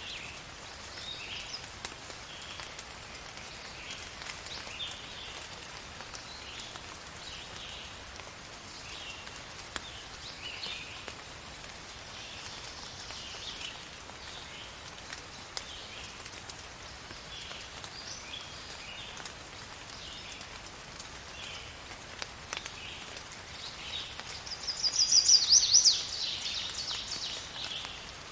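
Steady rain falling, with birds chirping now and then over it. Near the end a nearby bird gives one louder, rapid trill lasting about a second and a half.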